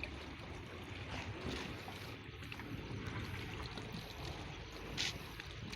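Steady wash of moving water, with one brief sharp knock about five seconds in.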